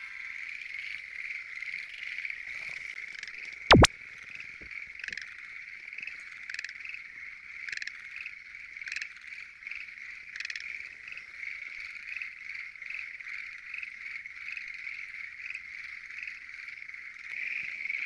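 Dense frog chorus at a pond, many frogs calling at once in a steady, high-pitched mass, with single louder calls standing out about once a second. A single sharp knock about four seconds in.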